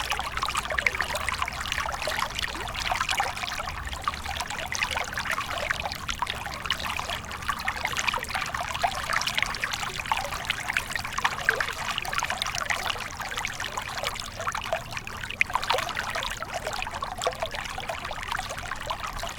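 Flowing water trickling and splashing steadily, a dense stream of small splashes.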